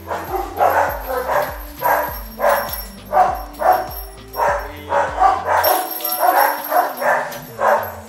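A dog barking repeatedly, about two barks a second, over background music.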